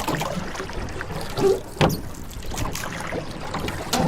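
Kayak on the water with water lapping and a few short creaks and knocks from its foot-pedal and rudder system, one a brief squeak about a second and a half in. The creaking comes from friction in dry, unlubricated joints.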